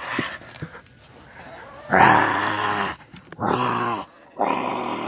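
A man's voice growling dinosaur roars for a puppet: three drawn-out growls starting about two seconds in, the first the loudest and longest.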